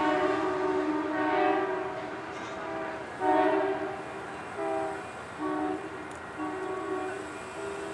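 Amtrak train horn, a multi-chime Nathan K5LA, sounding a series of blasts as the train runs down a street-running track: one long blast, then several shorter ones.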